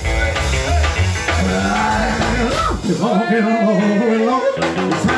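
Live rock 'n' roll band playing electric guitar, upright double bass and drums. About three seconds in, the bass and drums drop out, leaving higher sliding, bending notes.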